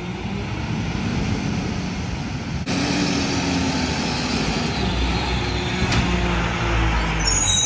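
Mack MRU garbage truck with a McNeilus rear-loader body pulling away under engine power. After a cut, the truck drives up and passes close by, its engine pitch rising and falling and a heavy low rumble building as it goes past.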